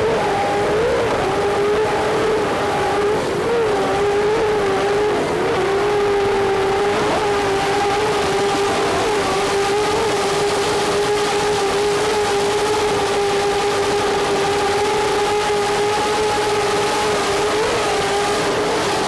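Loud, steady engine drone: a constant hum over a hiss, its pitch wavering slightly now and then.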